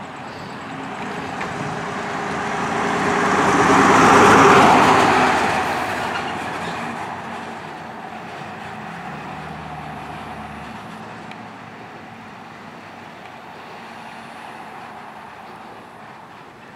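Ram-chassis fire rescue truck driving past: engine and tyre noise swells to a peak about four and a half seconds in as it passes, then fades slowly as it drives away.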